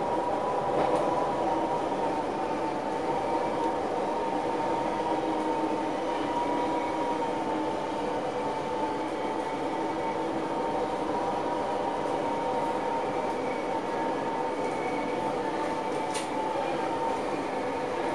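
NS SLT electric multiple unit heard from the driver's cab while running along the track: a steady whine over an even rumble, with a couple of faint clicks.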